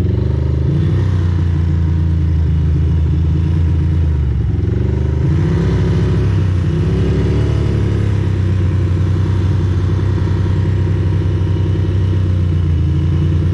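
Ducati Monster's V-twin engine heard from the rider's seat, rising and falling in pitch several times in the first half as the bike accelerates and changes speed, then running at a steady low pitch as it closes up behind traffic.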